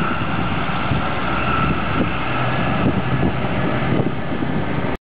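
Heavy diesel dump trucks driving past one after another, a steady engine rumble with a faint high whine above it.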